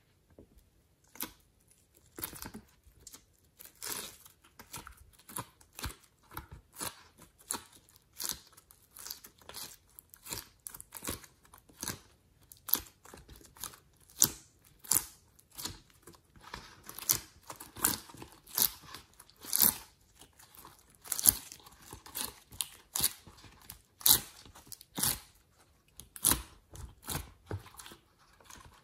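Glossy slime pressed into a silicone mold full of clay pieces and pulled away again: a dense, irregular run of sticky clicks, crackles and pops that starts about a second in.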